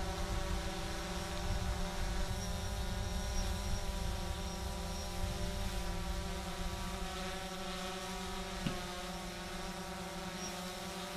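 Visuo mini quadcopter drone hovering close by, its propellers giving a steady buzz of several held tones, with wind rumbling on the microphone, heavier in the first half. One brief click near the end.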